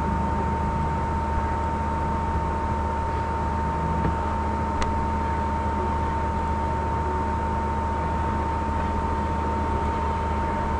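Steady hiss and electrical hum with a constant high whine, the noise floor of the recording, and one faint click about five seconds in.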